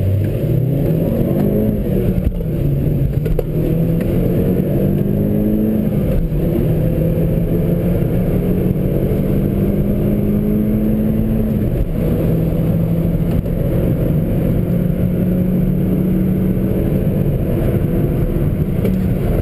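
Vauxhall Corsa VXR's 1.6-litre turbocharged four-cylinder engine, heard from inside the cabin over road and tyre noise, pulling hard. Its pitch climbs quickly in the first couple of seconds, then holds high and creeps up, dropping briefly about twelve seconds in.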